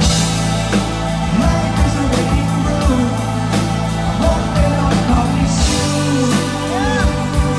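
Live rock band playing: a twelve-string acoustic guitar, keyboards and drums, with a male lead voice singing over them. A cymbal wash swells about two-thirds of the way through.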